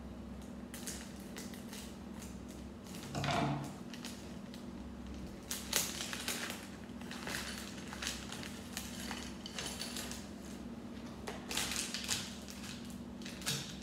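Crinkling and rustling of a Lego minifigure blind packet being cut and torn open, with irregular small clicks of the plastic parts being handled and set on a table.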